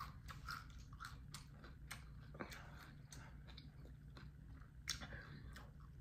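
Faint close-up chewing of a mouthful of romaine lettuce taco wrap, with scattered small wet mouth clicks and one slightly louder click about five seconds in.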